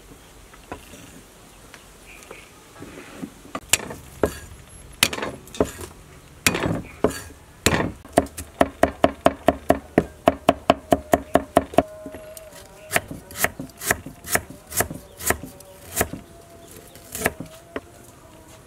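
Knife chopping garlic on a thick wooden chopping board. Scattered sharp knocks, then a quick even run of about four chops a second, then slower, spaced chops.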